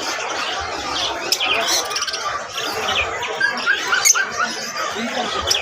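Many caged pet birds chirping and squawking at once, short overlapping calls over a low hubbub of people talking.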